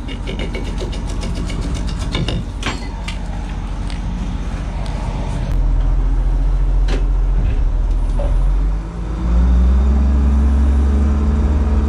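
Wheel loader's diesel engine running, with scattered clicks and knocks in the first few seconds. The engine gets louder about halfway through, and near the end its note rises and strengthens as it works harder.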